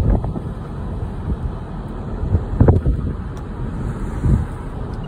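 Gusty wind buffeting a phone's microphone: a low, rumbling rush with stronger gusts about two and a half and four seconds in.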